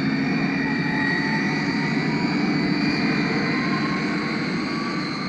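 Jet airliner taking off and climbing: the engines make a steady rush with a high whine running through it, slowly fading away.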